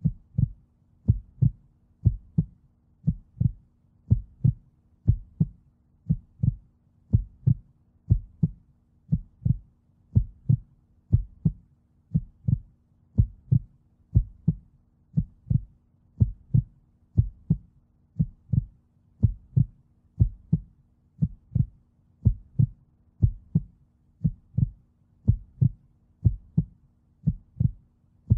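Car's hazard warning indicator ticking steadily, a tick-tock pair repeating a little faster than once a second, over a faint steady hum in the cabin.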